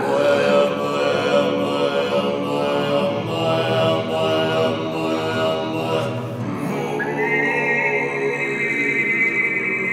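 Tuvan-style throat singing by two male voices over nylon-string guitar: a steady, buzzy vocal drone carrying a sustained overtone melody, with a high, whistle-like overtone coming in about seven seconds in.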